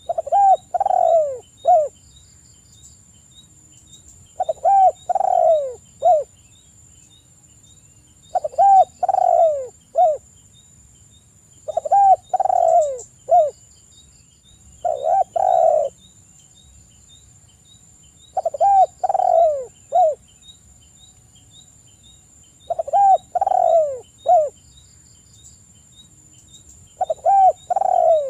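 Spotted dove cooing. A short phrase of three or four notes, the last one short and set apart, repeats about every three and a half to four seconds, eight times in all.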